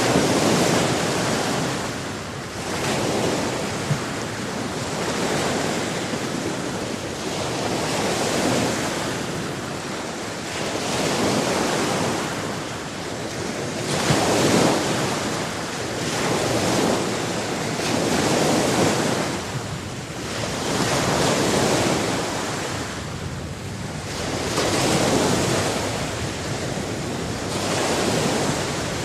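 Sea waves washing onto a shore, the surf swelling and falling away every three to four seconds.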